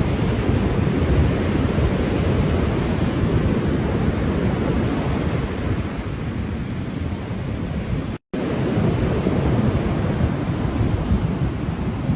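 Ocean surf: a steady, even rush of waves, heaviest in the low end. The sound cuts out completely for a split second about eight seconds in.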